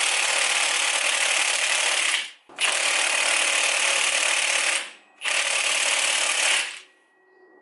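Cordless high-torque impact wrench hammering on a Toyota 1JZ engine's crank pulley bolt through a 22 mm impact socket, in three bursts of a couple of seconds each with short pauses between. The bolt is seized tight and is being worked loose with the car in gear and the e-brake on.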